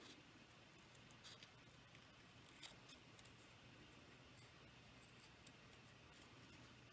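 Small scissors making faint, scattered snips in cardstock as an image is fussy cut out close around its stamped outline.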